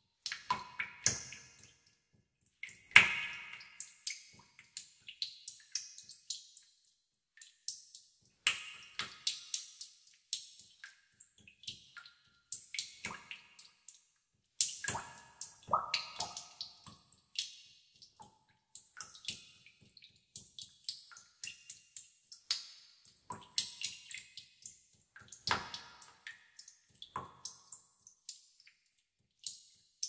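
Water droplets dripping into a pool in a cave, echoing: irregular plinks several a second, some louder and with a short ringing pitch.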